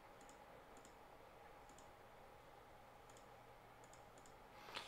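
Faint, sparse clicks of computer keys as code is edited, coming in small pairs and groups over near-silent room tone.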